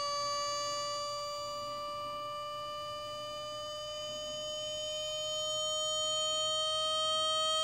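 Benjamin ReCharge high-pressure PCP compressor running as it fills an air rifle's reservoir: one steady whine that climbs slowly and evenly in pitch as the fill pressure builds.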